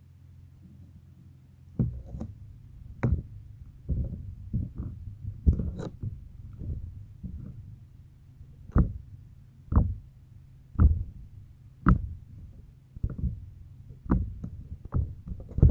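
Slime being squeezed and pressed by hand, making short squelches and pops about once a second, starting about two seconds in, over a low steady hum.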